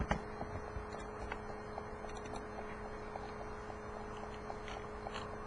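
Steady faint electrical hum with a couple of steady low tones, and light scattered clicks of a computer mouse.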